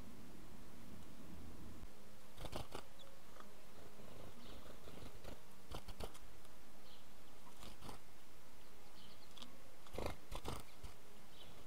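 Steady background hiss with a few scattered sharp clicks, then a quick flurry of clicks and flutters about ten seconds in as house sparrows fly in and land at a ground feeder.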